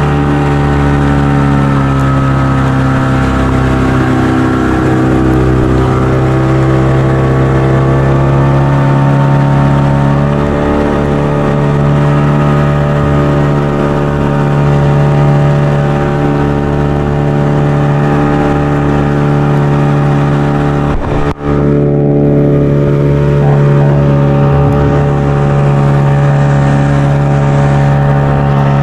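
Fishing boat's engine running at a steady speed close by, with a momentary break about three-quarters of the way through.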